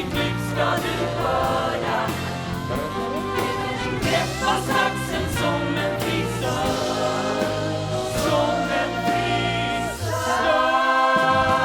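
A song with instrumental backing and a choir of voices singing. About ten seconds in, the bass drops out and the voices hold a long, steady chord.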